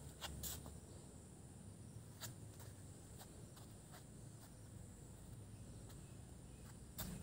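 Near silence: faint background hiss with a thin steady high tone and a few soft clicks, one about two seconds in and a slightly louder one near the end.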